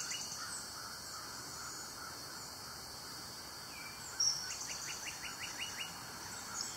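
Faint birdsong in the background: a short high chirp about four seconds in, followed by a rapid trill of about eight notes a second, over a steady hiss.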